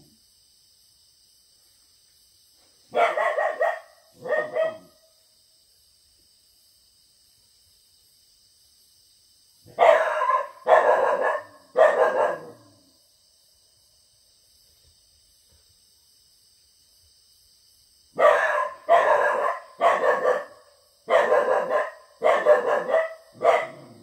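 A young Jindo-mix dog barks in three bouts: twice about three seconds in, three times around ten seconds, and about seven times in quick succession near the end. Underneath is a steady high chorus of crickets and other night insects.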